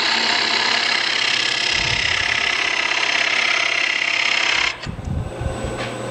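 A turning gouge cutting into a spinning wooden dish on a wood lathe, a steady shaving hiss as the curls come off. The cut stops about four and a half seconds in, leaving the lathe running with a low hum and a few light knocks.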